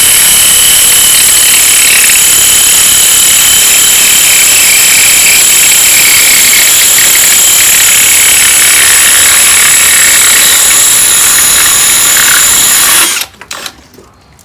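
Devon 5283-Li-20TSI 20 V cordless drill running an 8 mm tile-and-glass bit through wet glass, a loud steady grinding whine with high ringing tones. It cuts off suddenly about 13 seconds in, once the bit is through.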